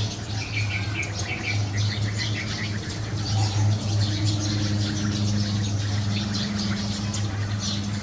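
Dense, continuous chirping of a flock of Eurasian tree sparrows gathered at their evening roost, many short calls overlapping, over a steady low hum.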